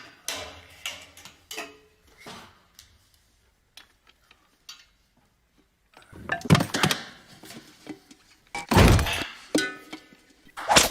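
A string of cartoon sound effects: scattered knocks and clinks, a near-quiet gap in the middle, then a louder run of clattering hits and crashes with one heavy thump near the end.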